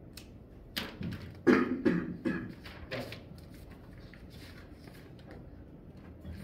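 A quick run of short, sharp knocks and thumps close by, about half a dozen in two seconds, the loudest about a second and a half in, then quiet room tone.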